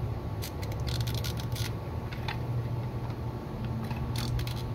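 Sharp plastic clicks and scrapes as a pick tool pries open the plastic latches of a Toyota Corolla fuel pump module. They come in a cluster about half a second in and another near the end, over a steady low hum.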